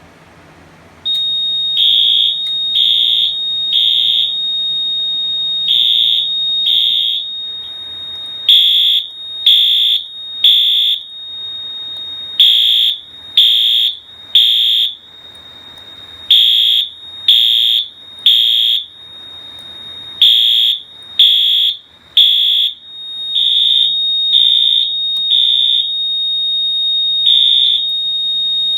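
Wheelock AH-24 fire alarm horn sounding the temporal code-3 pattern at low volume: three one-second blasts, a pause, then three more, over and over. A continuous high-pitched tone starts about a second in and runs underneath the blasts.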